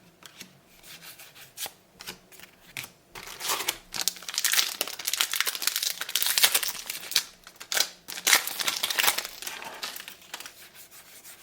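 A trading card booster pack wrapper being torn open and crinkled, in a run of irregular crackles and rips that is busiest in the middle, as the cards are pulled out and handled.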